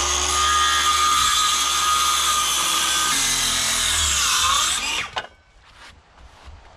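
DeWalt circular saw running at full speed and cutting through a pine rafter board, the motor whine sagging briefly under load near the end of the cut, then switched off about five seconds in.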